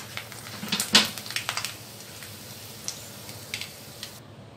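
Kitchen utensils clicking and clattering: a quick run of sharp metal knocks about a second in, then a few lone ticks.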